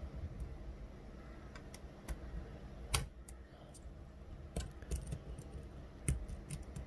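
Lock pick and tension wrench working the pins of an Assa 600 euro cylinder during single-pin picking: faint, scattered metallic clicks and ticks. The sharpest click comes about three seconds in, and a few more follow close together later on.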